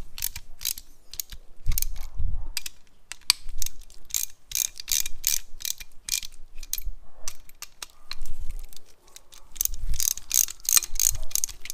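Hand ratchet clicking in quick runs with short pauses as it turns a bolt on an aftermarket camber-kit upper control arm, setting the camber adjustment.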